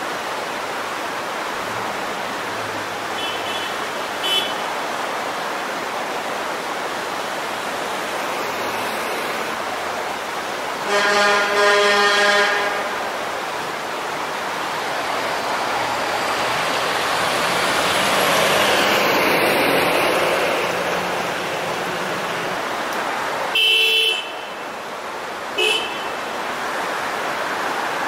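Car horns sounding at a blind, narrow corner to warn oncoming traffic: a faint short toot a few seconds in, a long loud blast near the middle, and two short honks near the end. A creek rushes steadily throughout, and a car drives past between the horns.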